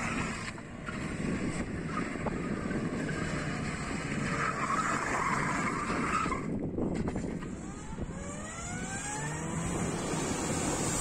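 Car driven hard, engine running with tyres squealing. A brief break comes about two-thirds of the way in, then the engine revs up with a rising pitch.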